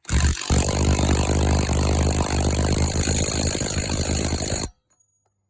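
Craftsman 20-volt half-inch cordless impact wrench running on a 36 mm axle nut, hammering steadily with a buzzing rattle for about four and a half seconds, then stopping abruptly.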